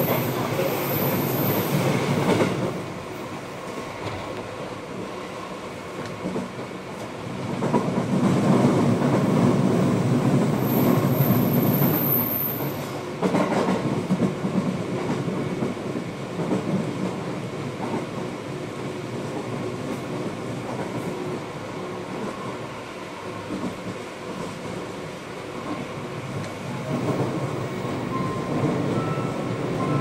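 Running noise of an Aichi Loop Railway two-car electric train, heard from inside the car as it travels along the line: a continuous rumble of wheels on rails. It swells louder for a few seconds about a third of the way through, then settles back.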